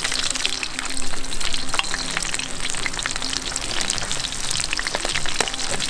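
Whole sand whiting shallow-frying in hot oil, sizzling and crackling steadily.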